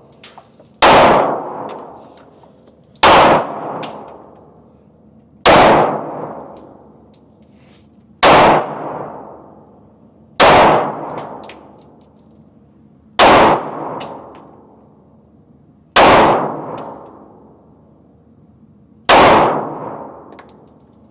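Handgun fired eight times in slow, deliberate succession, one shot every two to three seconds, each followed by an echoing decay.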